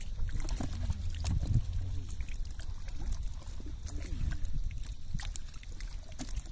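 Wet squelching and scattered short clicks as hands pick small fish out of a muddy cast net, over a low steady rumble.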